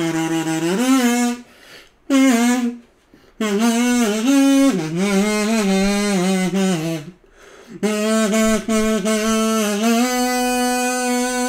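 Solo kazoo buzzing out the melody of an anime opening theme, with pitch slides between notes. It plays in short phrases broken by three brief pauses and ends on a long held note.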